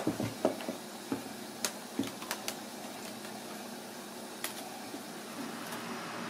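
Light knocks and clicks of a live, tape-bound mud crab's shell and legs against a plastic cutting board as it is turned and handled, most of them in the first two and a half seconds with a few more scattered later, over a steady background hum.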